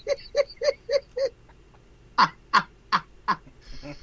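A man laughing hard in short honking bursts, a quick run of them, then four louder ones that each fall in pitch.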